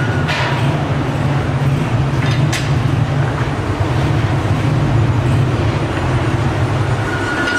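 Steady low hum and rumble of running workshop machinery, with a couple of brief sharp metallic knocks near the start.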